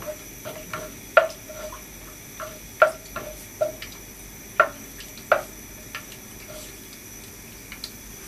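Wooden spatula knocking and scraping against a granite-coated pot as whole spices are stirred in hot oil: a string of irregular knocks with a brief ring, thinning out after about six seconds.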